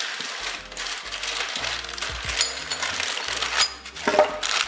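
Clear plastic bags of small screws and fittings being handled, the plastic crinkling while the metal pieces inside click and rattle, with a couple of brief metallic clinks.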